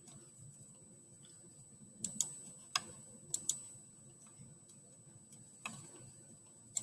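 Computer mouse clicking: about seven sharp, irregular single and paired clicks, with a faint steady high whine behind them.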